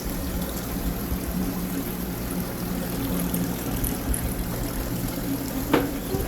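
Saltwater aquarium filtration: water trickling and splashing steadily over a low pump hum.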